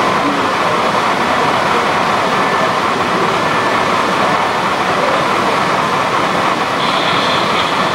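Model trains running on the layout: a steady, even rumble of wheels on track and electric motors, with a faint steady whine.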